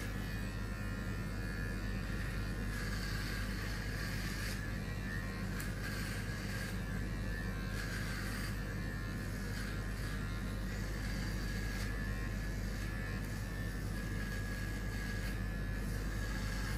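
Electric hair clippers buzzing steadily as a head is shaved down toward bald.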